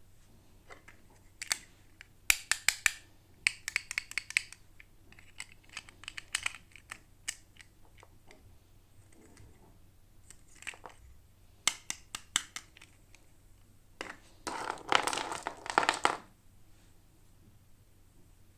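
Toy packaging being handled and opened: scattered sharp clicks and taps, some in quick clusters, then a louder crinkling rustle lasting about a second and a half near the end.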